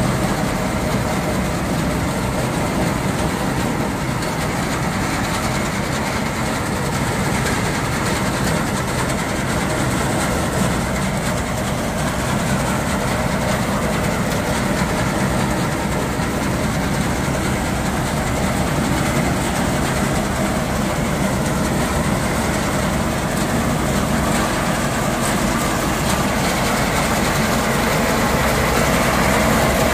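Tractor's diesel engine running steadily while driving a front-mounted reaper, its cutter bar and reel working through the crop, with a rhythmic mechanical clatter; a little louder near the end as the machine comes close.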